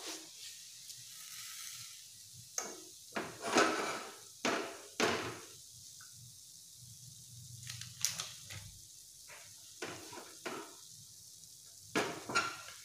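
A steel spoon stirring and scraping a thick mixture of grated coconut and sugar around a kadai, in irregular strokes with short pauses between them. The mixture is being fried down on low heat and has turned sticky, ready for rolling into laddus.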